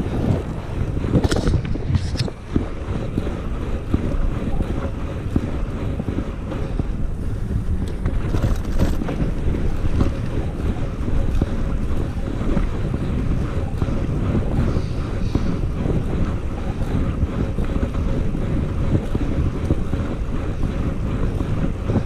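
Wind buffeting the microphone of a moving bicycle: a steady, low rushing noise, with a couple of sharp clicks about a second and two seconds in.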